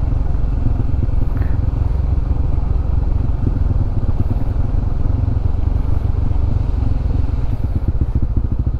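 Honda CB150X's single-cylinder engine running as the motorcycle is ridden, a steady low rumble whose firing pulses stand out more distinctly near the end.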